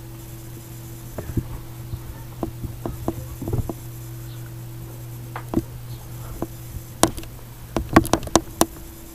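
Scattered light clicks and taps over a steady low electrical hum, with a quick run of sharper clicks near the end.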